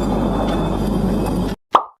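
A steady rumbling noise with a low hum that cuts off abruptly about one and a half seconds in, followed by a single short plop.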